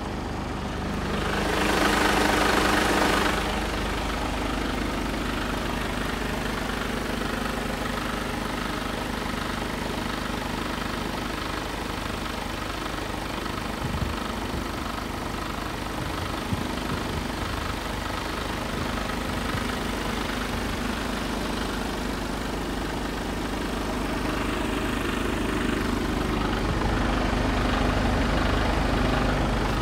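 Mercedes Actros 2545's 450 bhp Euro 6 diesel, a 12.8-litre straight-six, idling steadily. There is a brief, loud rushing hiss about two seconds in, and the engine grows louder near the end.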